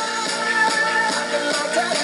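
A recorded song playing, with instruments and a sung melody.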